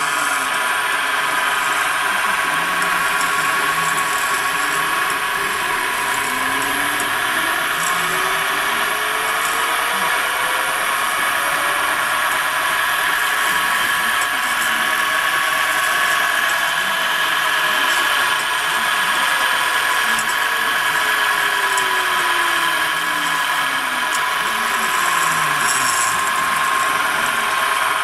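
Milling machine with a newly fitted spindle motor running steadily with a high whine. A fainter tone climbs slowly in pitch through the middle and then slides back down over about ten seconds.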